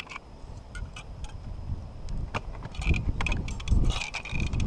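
Wind rumbling on the microphone, with scattered clicks and brief squeaks as a caulking gun presses roofing cement under a lifted asphalt shingle.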